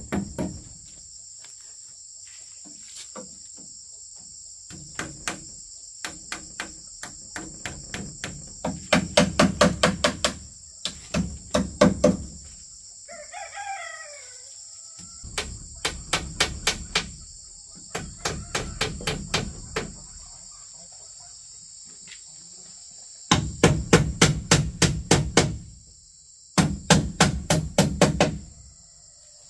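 Rapid knocking strikes in bursts of a second or two, about six or seven blows a second, with pauses between bursts. A steady chirring of crickets runs underneath, and a brief chicken call comes in about halfway through.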